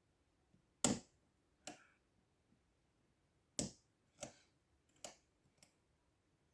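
About six sharp, short metallic clicks at uneven intervals from a pick hook working the pin stack inside a Zeiss Ikon padlock under heavy tension, as pins set and shift in the core.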